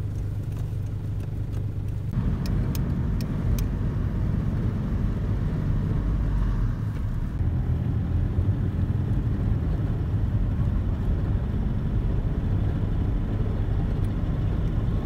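Car engine and road noise heard from inside the cabin. For the first couple of seconds there is a steady low idle hum, then it turns abruptly into louder engine and road noise as the car drives along. A few light clicks come about three seconds in.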